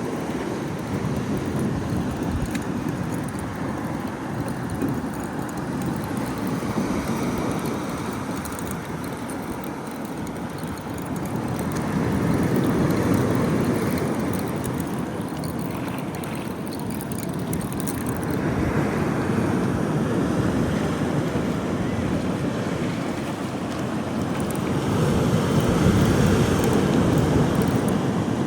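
Wind buffeting the microphone over the wash of surf, swelling and easing in slow gusts.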